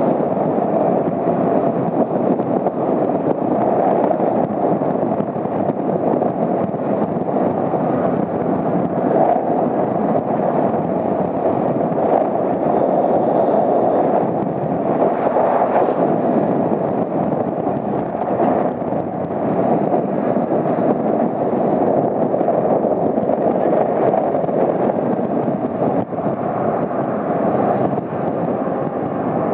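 Steady rush of wind on the microphone while riding a Honda CBR250R motorcycle at speed, with the bike's engine and road noise underneath.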